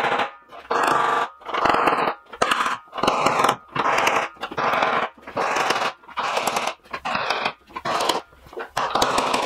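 Hammer striking a punch set against a wine barrel's metal hoop, about a dozen ringing metal blows at a steady pace of roughly one every 0.7 seconds, driving the hoop up off the staves.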